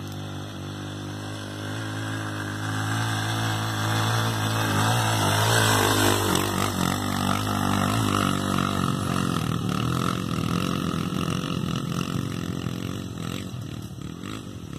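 Off-road motorcycle engine running, growing louder to a peak about six seconds in and then easing off.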